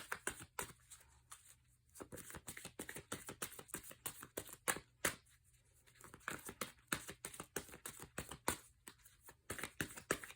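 Tarot cards being shuffled and handled: a run of quick, irregular clicks and flicks, pausing briefly a couple of times.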